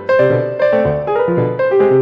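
Background piano music: a gentle melody of struck notes at an even pace, about four a second, each ringing and fading.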